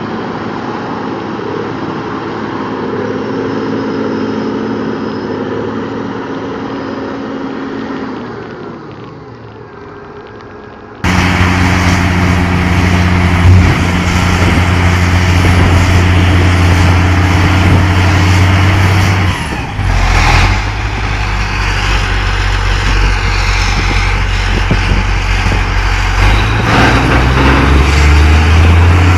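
Diesel engine of a Challenger tractor running steadily as it works a muddy field, fading after about eight seconds. About eleven seconds in it gives way abruptly to the louder diesel of a Terex TR60 dump truck running with its bed tipped up, revving up near the end.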